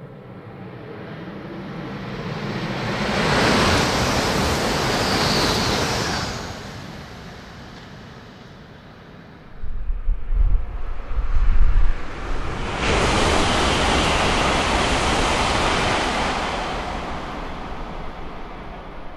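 ALFA-X E956 Shinkansen test train going by at high speed twice. A rising rush of air and rail noise peaks a few seconds in on the 360 km/h pass and fades. After some low rumbling, the 320 km/h pass bursts in about 13 seconds in and fades slowly as the train moves away.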